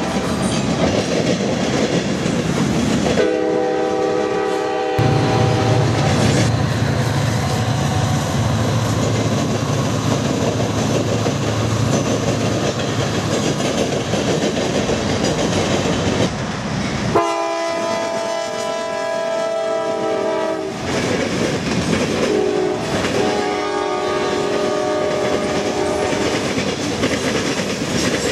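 A long freight train of flatcars and hopper cars rolling past, with steady rumble and clatter of wheels over the rail joints. A locomotive's multi-chime air horn sounds three times: about 3 seconds in, a longer blast about 17 seconds in, and a shorter one about 23 seconds in.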